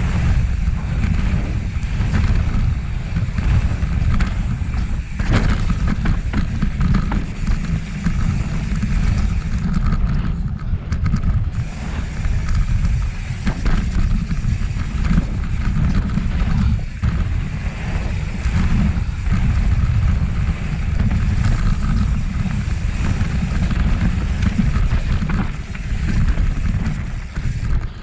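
Mountain bike riding down a dirt flow trail: wind buffeting the camera microphone and tyres rolling over the dirt, a steady heavy rumble with scattered knocks and rattles from the bike.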